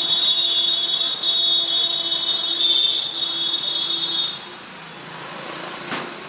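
A vehicle horn sounding long and buzzy, with two brief breaks, stopping a little past four seconds in; then quieter street traffic noise.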